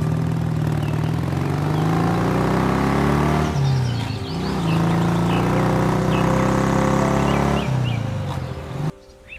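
Motor vehicles passing on a road: engine pitch rises and then drops as one goes by about three and a half seconds in, and again near the end, with birds chirping. The sound cuts off sharply just before the end.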